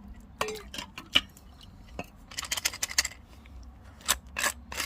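A Zippo Typhoon match case being handled and opened after a waterproof test: irregular sharp clicks and taps of the plastic case, with two short scraping rustles, one about two seconds in and one near the end.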